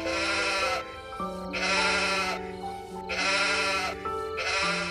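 An animal bleating four times, each call under a second long and quavering, about one and a half seconds apart, over background music with held notes.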